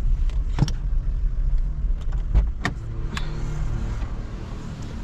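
Car running, heard from inside the cabin: a steady low rumble with a few sharp clicks and knocks.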